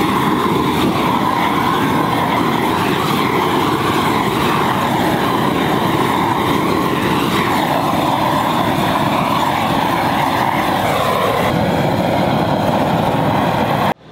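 Propane weed-burner torch running, a loud steady rush of flame as it is played over pine boards to char their surface. It cuts off suddenly near the end.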